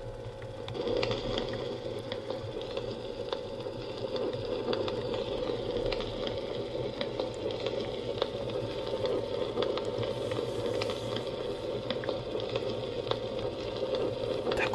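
Recorded campfire sound playing from a humidifier's built-in speaker, starting about a second in: a steady crackle with many sharp pops.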